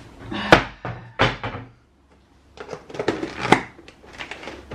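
Plastic lid being put on and pressed down onto a plastic food storage tub: two sharp knocks in the first second and a half, then a run of clicks and snaps as the lid seats, loudest about three and a half seconds in.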